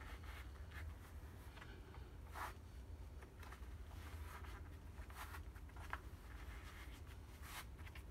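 Faint, irregular rustling and scraping of hands gripping and straining a wrapped Grade 8 steel bolt in a reverse bend, over a low steady hum.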